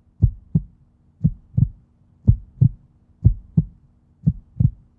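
Heartbeat sound effect: paired lub-dub thumps, about one pair a second, steady throughout.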